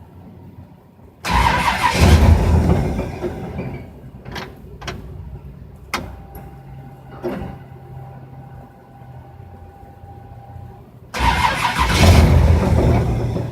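An engine with FiTech throttle-body fuel injection being cranked twice, each attempt lasting about two seconds, without it starting and running. A few clicks and a faint steady whine come between the attempts.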